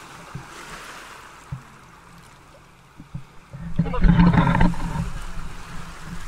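Water lapping and washing around a small outrigger boat, with wind rumbling on the microphone. A louder burst comes about four seconds in and fades over the next second.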